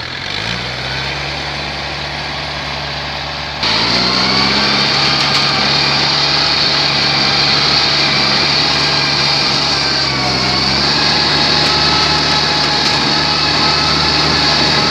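Rice combine harvester's diesel engine running at high revs. It revs up in the first second, turns suddenly louder a little over a third of the way through, and sags briefly in pitch about two-thirds through before picking back up.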